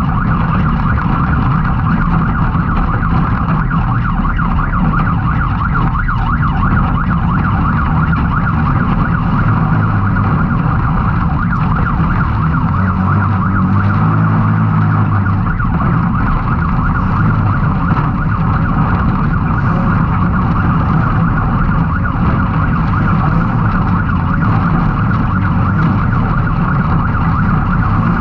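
Can-Am Maverick X3's turbocharged three-cylinder engine running hard, its pitch stepping up and down with the throttle, with a steady high whine over it.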